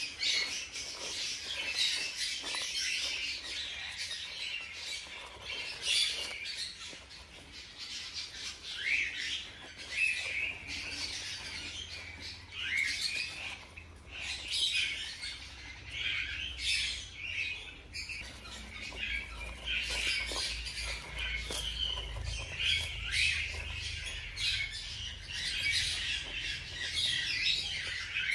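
Newborn hamster pups squeaking: a stream of short, high-pitched chirps and squeaks, some rising in pitch, over a crackle of seed husks shifting in the bedding.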